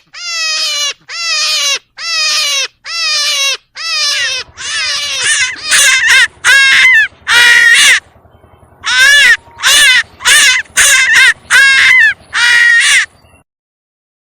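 An animal giving a series of about a dozen loud, shrill, crying calls, each about half a second long and falling in pitch. There is a brief pause partway through, and the calls stop about a second before the end.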